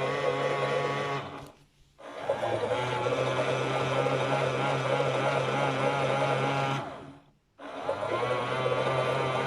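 Toy Miele Softtronic washing machine's small electric motor turning the drum with a steady hum and a wavering whine. It stops briefly twice, about one and a half seconds in and again near the end, then starts up again, in the stop-start drum action of a wash program.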